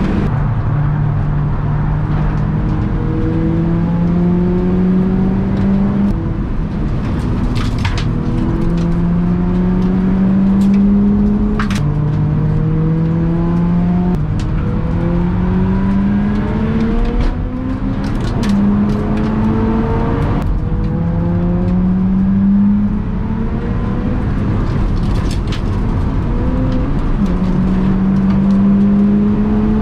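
BMW E46 engine heard from inside the cabin under hard track driving, its note climbing in pitch over a second or three and dropping back again and again as the driver works through the gears and lifts for corners.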